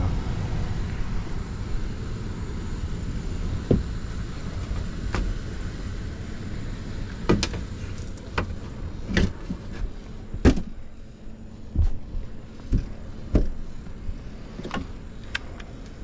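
Heat pump air handler's blower running with a steady low hum; the technician judges it to be turning awfully slow. Scattered knocks and clunks of sheet-metal panels and tools being handled sound over it, the loudest a little past halfway.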